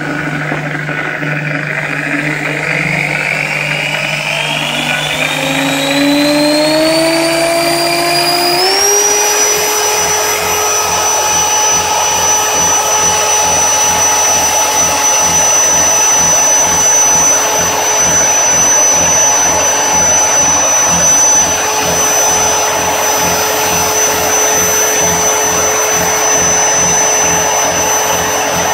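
Iskra power drill running free with an empty chuck. Its motor whine rises in pitch over the first nine seconds or so as the chuck speeds up from about 1,300 to about 2,600 rpm, then holds steady.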